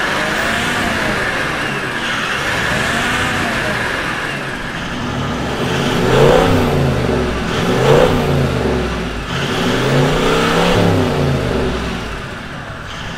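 Toyota Landcruiser 79 Series V8 turbo-diesel revved by blipping the accelerator, the revs rising and falling in slow repeated blips about every two seconds. It is heard through the standard exhaust at first and through a stainless Torqit performance exhaust by the end, and the blips are louder from about halfway.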